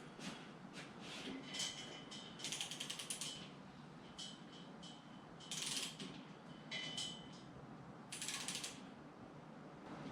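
A ratchet clicking in short rapid runs, four or five bursts of about half a second to a second each, with a faint metallic ring, as the lifting gear lets a heavy lathe down.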